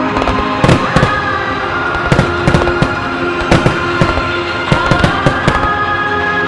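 Aerial firework shells bursting with sharp bangs, a dozen or so in quick, irregular succession, over music played along with the display.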